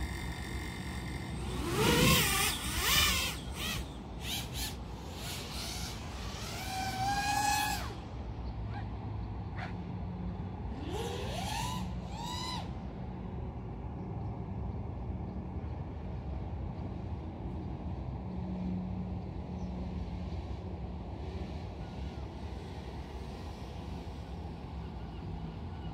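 Brushless motors and propellers of a 5-inch FPV quadcopter, the Orqa Dream X, spooling up and revving. The first half holds several sharp rising whines as the throttle is punched, the loudest about two and three seconds in. After that comes a steadier, even whirr as it cruises.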